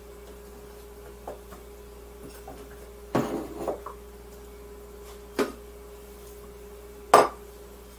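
Dishes handled on a kitchen counter: bowls knocking and clinking as chopped bell peppers are tipped into a container of vegetables, with a short clatter about three seconds in and single sharp knocks about five and seven seconds in, over a steady faint hum.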